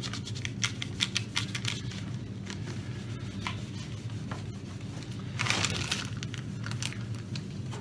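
Cloth rubbing polish along the sanded edge of a painted acrylic glass panel, buffing it to a shine: quick scrubbing strokes through the first couple of seconds, fewer after, and one longer swish a little past the middle. A steady low hum runs underneath.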